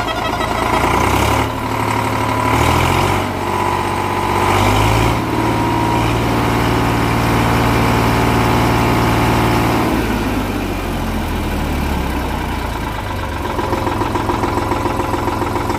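Eicher 485 tractor's three-cylinder diesel engine run up on the throttle. The revs climb in steps to near full speed, about 2400 rpm, and hold there steadily for several seconds. About ten seconds in they drop back, and the engine settles toward idle.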